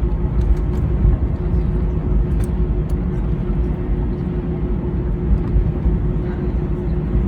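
Jet airliner cabin noise while taxiing: a steady deep rumble with a constant hum through it and a few faint ticks.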